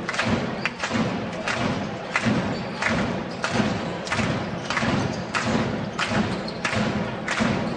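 Spectators in a basketball arena drumming and clapping in a steady rhythm, about two beats a second: low thuds with sharp claps on top.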